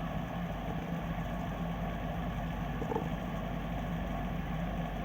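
Coleman mobile home gas furnace running with its burners lit: a steady hum from the inducer fan motor and the burner flame. The inducer motor is noisy and due for replacement.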